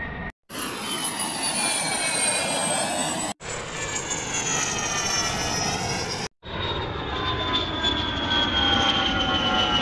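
Three back-to-back clips of an edited jet airliner engine sound effect, cut apart by short silent breaks. In each clip several high whistling engine tones fall steadily in pitch over a rushing roar, like a jet passing by.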